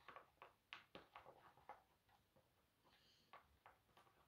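Near silence, with a few faint, scattered clicks and ticks, more of them in the first couple of seconds.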